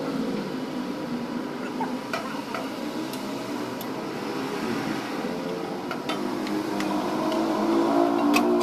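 Stainless-steel exhaust pipes being fitted under a car, giving a few light metallic clinks and taps, over a steady engine hum.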